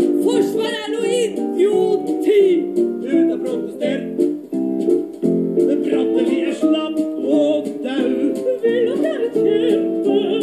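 A song sung to a plucked-string accompaniment, with a wavering vibrato in the voice.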